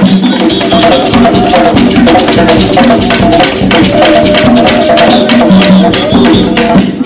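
A drum troupe playing tall hand drums: many fast strokes in a busy, continuous rhythm, with some held pitched notes over it.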